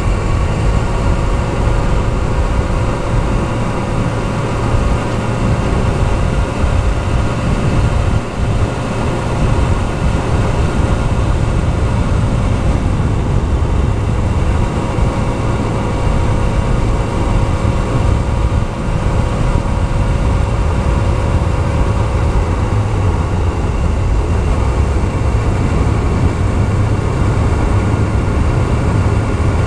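Yamaha YZF-R6S inline-four engine running at steady cruising revs under way, over heavy wind rumble on the microphone. The engine note dips briefly about 13 seconds in and shifts again a little after 20 seconds.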